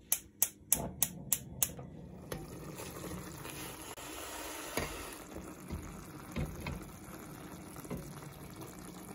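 A gas hob's electric igniter clicking about six times, roughly three a second, then from about two seconds in a steady hiss of the tomato-sauced aubergines simmering in the pan.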